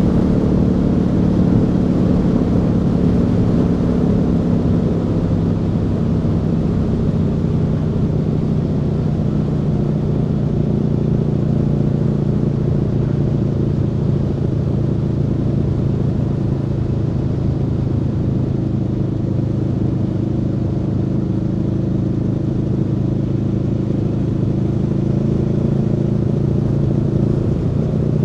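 Aprilia Tuono V4's V4 engine running at a steady cruise on the road, its note easing slightly lower over the first few seconds and then holding even.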